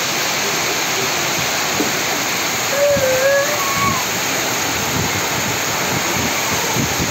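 Heavy rain pouring steadily, with a brief wavering call about three seconds in.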